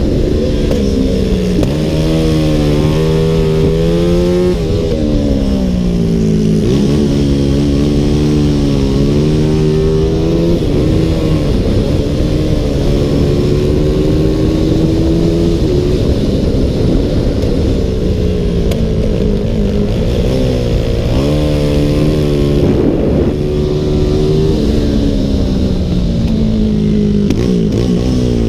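Race motorcycle's CG 300 stock-class single-cylinder four-stroke engine at full throttle, heard from the bike itself. Its pitch climbs through each gear and drops back at shifts and into corners, again and again. Wind hiss runs underneath.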